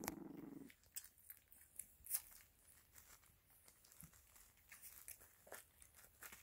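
Faint crinkling and scratching of a plastic-backed puppy pad under Italian Greyhound puppies' paws as they wrestle, heard as scattered soft crackles and ticks. A short low rumble sounds at the very start.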